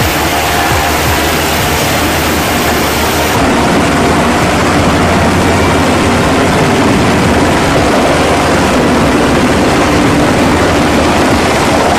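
Loud, steady roar of an H-60 helicopter hovering close overhead: rotor and turbine engine noise. The sound shifts about three and a half seconds in, growing fuller and lower.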